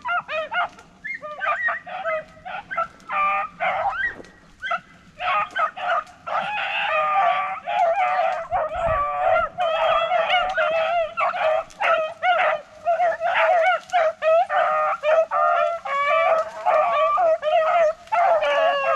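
A pack of beagles baying, several voices overlapping: short broken bursts at first, then near-continuous from about six seconds in. This is hound music, the sound of beagles running a rabbit on scent.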